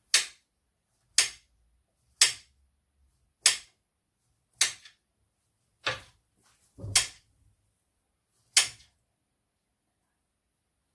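Knife cutting through a banana and tapping the glass stove-top cover beneath with each slice: eight sharp taps, roughly one a second.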